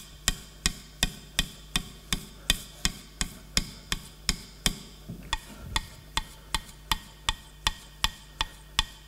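Steel chisel being stroked quickly back and forth on fine-grit abrasive paper laid on a glass plate, honing and polishing the bevel. It gives a steady run of sharp clicks, about three a second.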